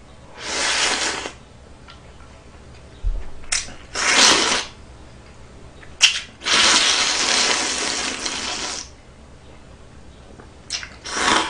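A person slurping Neoguri instant ramen from a ladle, four slurps: three short ones and one long one of about two seconds in the middle.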